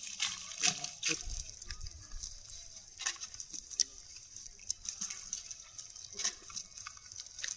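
Water dripping and splashing from a wet cast net full of climbing perch, with many short slaps and rustles from the fish and the net.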